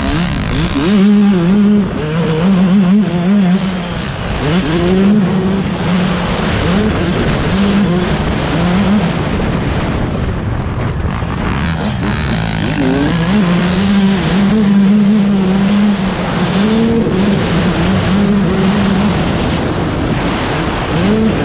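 Motocross dirt bike engines racing, revving up and easing off again and again.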